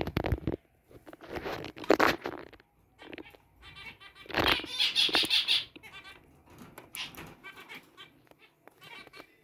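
Zebra finches calling: a series of short, buzzy calls, loudest about halfway through, followed by softer repeated notes.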